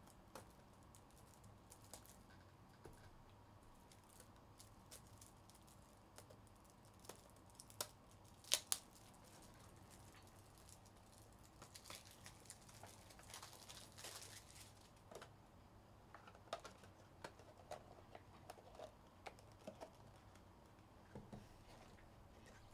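Hands handling trading cards and plastic card sleeves: faint scattered clicks and taps, two sharper clicks a little past eight seconds in, and soft crinkling around twelve to fourteen seconds, over near-silent room tone.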